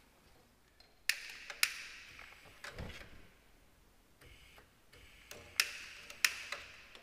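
A wand-style lighter clicked several times at irregular intervals, each a sharp click with a short ring, in an attempt to light the oven's gas pilot.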